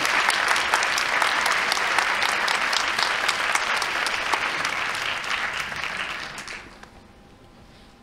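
Audience applauding, the clapping dying away about six and a half seconds in.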